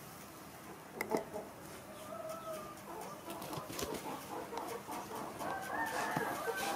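Animal calls: a run of short pitched calls and squeaks that grows busier and louder, with one longer high call held for about a second near the end. A single knock sounds about a second in.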